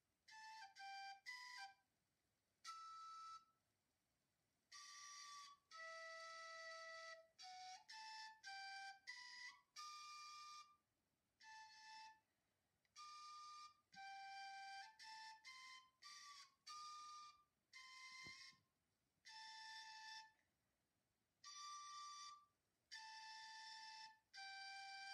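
Outro music: a solo flute melody of single held notes in short phrases, with brief silent gaps between the phrases.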